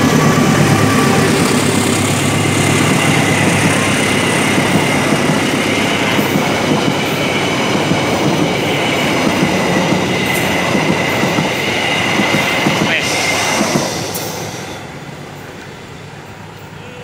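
KAI CC 206 diesel-electric locomotive and its passenger coaches passing close by at speed: a loud rumble of engine and wheels on the rails with a thin steady high-pitched whine over it. The noise falls away about fourteen seconds in as the last coach goes past and the train recedes.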